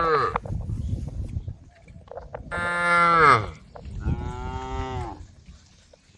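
Cows mooing: the end of one long moo at the start, then a loud moo about two and a half seconds in that rises and falls in pitch, and a softer one right after it.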